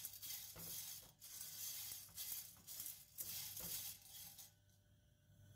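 Dry, unoiled popcorn kernels rattling and scraping faintly in a stainless steel pan as a silicone spatula stirs them, dry-toasting the kernels over the heat before the oil goes in. The stirring stops about four and a half seconds in.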